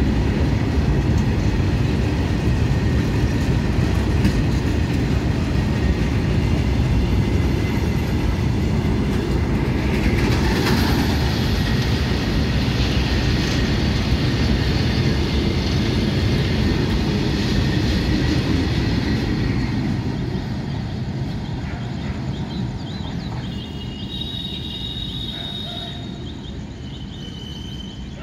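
Goods train of covered box wagons rolling past, a steady rumble of wheels on rails. The rumble fades over the last several seconds as the last wagons pass and the train moves away.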